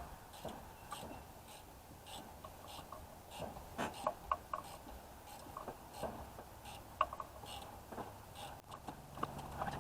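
Faint, scattered clicks, taps and light scraping of hand work on the nuts and bolts holding the Spitfire's rear spring and lowering block to the differential.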